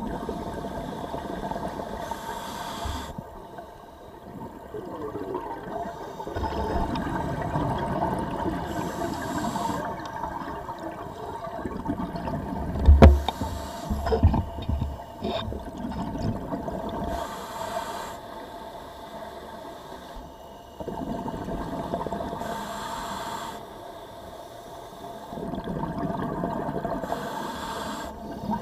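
A scuba diver breathing through a regulator underwater: a hissing inhale roughly every four to five seconds, each followed by a long rough bubbling exhale. A steady faint hum runs underneath, and a sharp knock about halfway through is the loudest sound.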